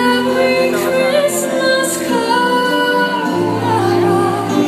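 Holiday fireworks show soundtrack played over the park's loudspeakers: a song with a woman's voice singing long held notes over music.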